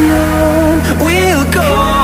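Background pop music with a gliding melody over steady accompaniment.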